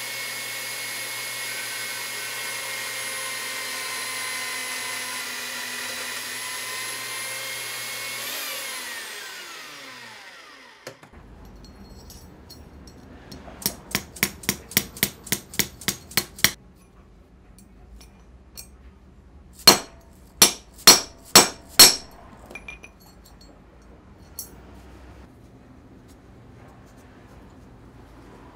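Benchtop metal-cutting band saw running steadily, then switched off, its motor winding down in a falling whine about nine seconds in. Then a mallet strikes a thin steel strip laid over square steel tubing: a quick run of about ten light blows, then five louder blows.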